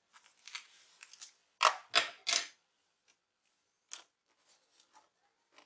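Handling noise from laptop parts: a few short scraping, rustling bursts, three of them louder about a second and a half to two and a half seconds in, then a few faint clicks.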